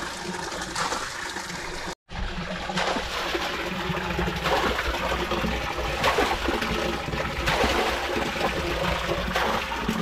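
Spring water running from a pipe into a small storage tank: a steady trickle and splash. The sound cuts out completely for a moment about two seconds in, then carries on.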